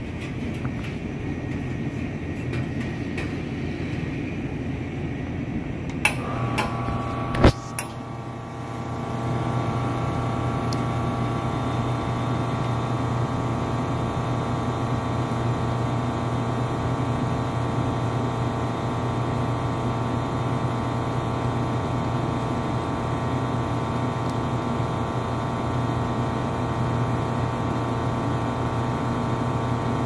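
Espresso machine pump running while a single shot pours. Sharp clicks about six and seven and a half seconds in as the shot starts, then a steady hum with several held tones.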